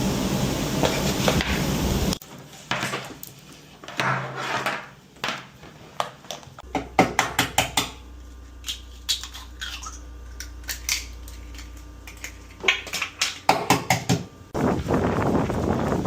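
Kitchen clatter: a string of sharp clinks and knocks of dishes and utensils, with a steady low hum through the middle. A steady rushing noise comes before it and returns near the end.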